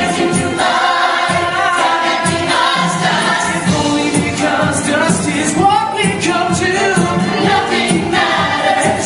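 Musical theatre cast singing in chorus over the show's band accompaniment, several voices together.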